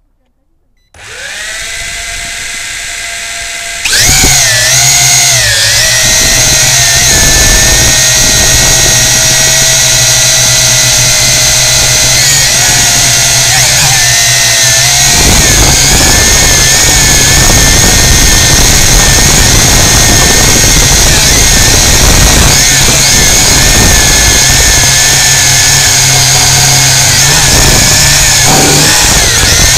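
Quadcopter drone's electric motors and propellers: a quiet whine starts about a second in as the motors spin up, then jumps to a loud, steady buzz about four seconds in as it lifts off. The pitch wavers a little just after liftoff, then holds steady as it flies low.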